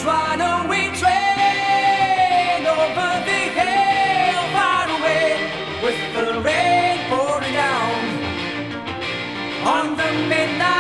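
Rock song with a male lead vocal singing long held notes that bend in pitch, over a full band backing.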